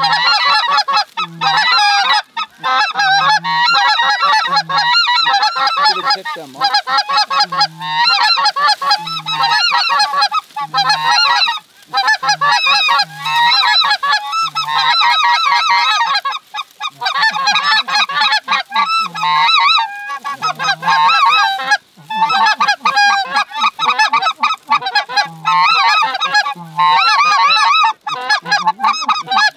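A large flock of geese honking and calling, many overlapping calls in a dense, continuous chorus broken only by brief gaps.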